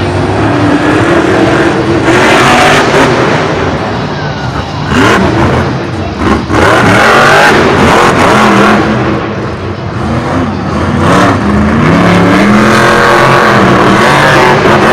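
Max-D monster truck's supercharged V8 revving hard, its pitch rising and falling over and over as the throttle is worked.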